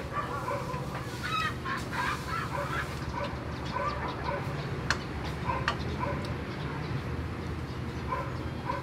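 Domestic poultry calling in the background: many short, scattered calls over a steady low hum.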